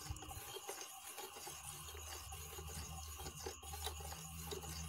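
Plastic spoon stirring and scraping in a plastic tub of aqua regia gold solution, faint repeated rubbing strokes as urea is stirred in to dissolve and neutralise the excess acid.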